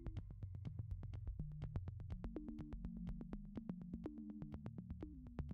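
Background electronic music: a low synthesizer line over a fast, steady ticking beat.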